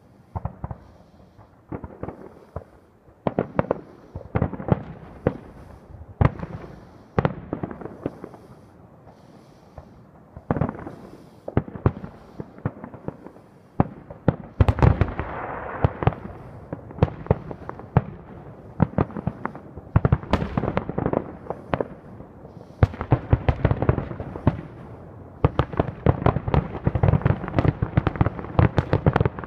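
Aerial fireworks shells bursting in a string of sharp bangs. The bangs are spaced apart at first, then come thick and fast from about halfway through into a near-continuous barrage.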